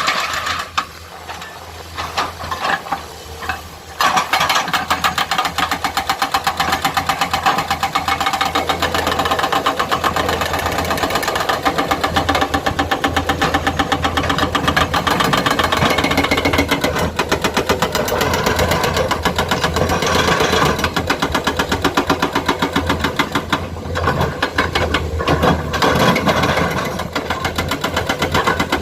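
Komatsu excavator's diesel engine running, with a fast, even rapping rhythm; it is quieter for the first few seconds, then runs loud and steady.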